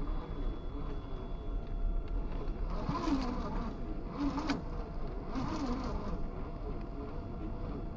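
Traxxas TRX-4 Defender RC crawler's electric motor and drivetrain whining in three short bursts of throttle, each rising and falling in pitch, as the truck crawls over rocks.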